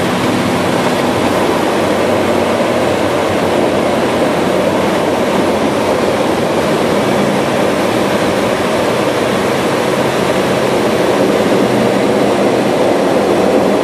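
Steady, loud cockpit noise of an ATR-72-500 turboprop rolling out on the runway after touchdown: engine and propeller noise mixed with rushing air and runway rumble, with a few faint steady engine tones underneath. It grows slightly louder near the end.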